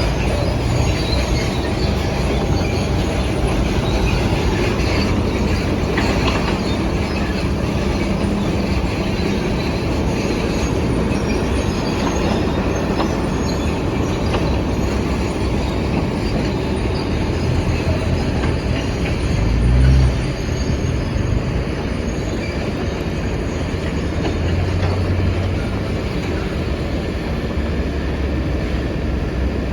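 Excavator working: its diesel engine runs steadily with heavy machine rumble, rising to a brief louder surge about twenty seconds in.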